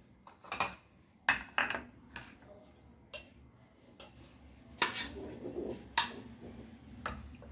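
Stainless steel kitchen tins and their lids being handled: a series of irregular metallic clinks and knocks, about nine over several seconds.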